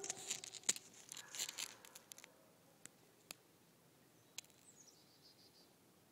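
A schnauzer's nose and paws scraping and crunching at icy snow for about two seconds, then a few separate sharp clicks.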